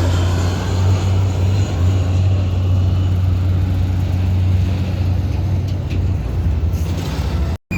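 Jet airliner coming in to land, a loud low rumble whose higher whine thins out in the first second or so. The sound cuts out for an instant near the end.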